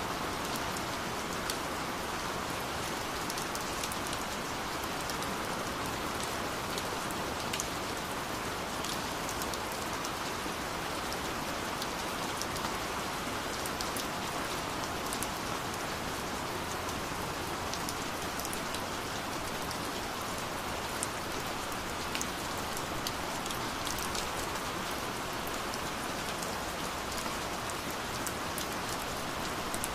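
Gentle rain falling steadily, an even hiss with scattered individual drops ticking through it.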